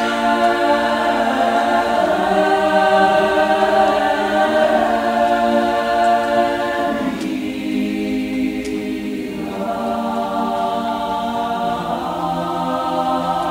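Mixed choir singing a Georgian sacred chant a cappella in long held chords. About seven seconds in the higher voices drop out for roughly two seconds, leaving the low voices sustaining, then the full chord returns.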